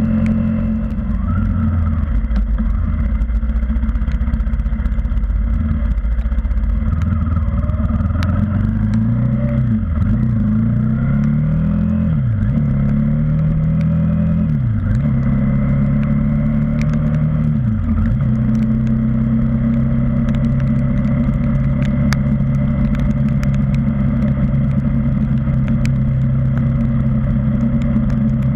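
KTM Duke 390's single-cylinder engine running on the move. Its pitch climbs and dips sharply four times in the middle as the bike goes up through the gears, then it holds steady at cruise, over steady wind rush and small ticks of rain on the camera.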